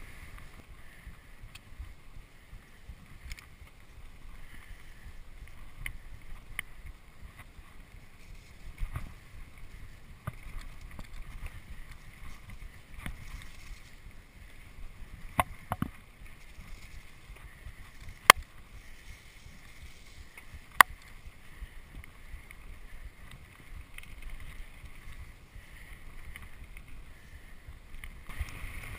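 Mountain bike riding down a dry dirt singletrack: a steady rumble and rattle of the tyres and bike over the trail, with a few sharp clacks in the second half.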